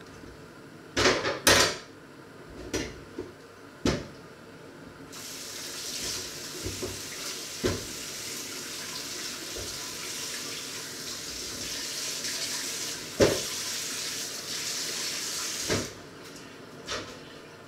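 A few sharp clattering knocks of pots and dishes. Then a kitchen tap runs steadily for about ten seconds, with a couple of knocks while it runs, and is shut off.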